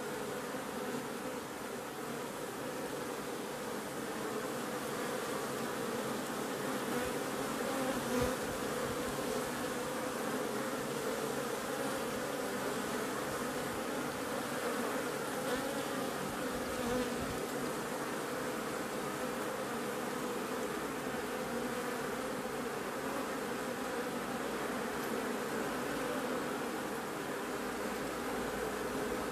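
Many honeybees buzzing in flight around busy hive entrances: a steady, dense hum of wingbeats, with a brief swell about eight seconds in.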